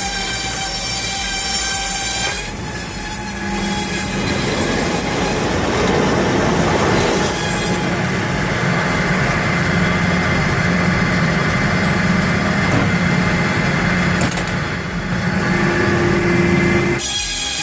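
Engine-driven circular sawmill running: a large circular saw blade spinning and cutting logs, a loud steady whine over an engine hum that shifts as the load changes.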